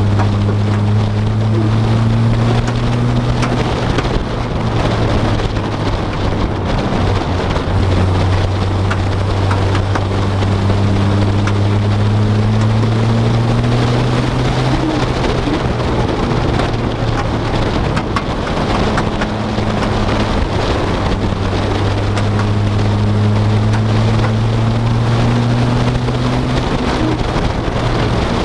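Vehicle engine heard from inside the cabin, droning low and rising slowly in pitch three times as it accelerates, dropping back between rises. A steady hiss of road or rain noise runs under it.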